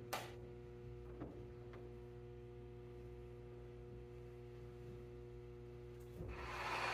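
Steady low electrical hum from the sound system, with a single click just after the start and a fainter tap about a second in. Near the end, music begins to swell in.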